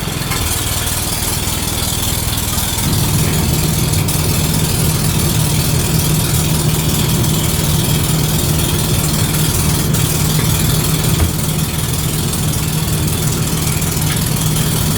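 Truck engine idling steadily, its low hum growing a little stronger about three seconds in.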